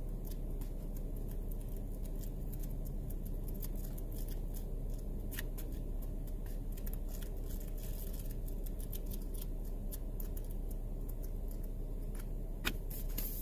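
Pages of a paperback cookbook being flipped through by hand: a quick run of crisp page flicks and ticks, one sharper flick near the end, over a low steady rumble.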